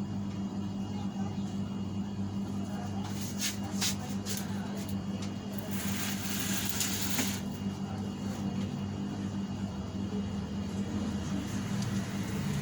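Metal parts of a meat slicer being worked on by hand during disassembly: a few sharp clicks, then a scraping rasp of about a second and a half, over a steady low hum.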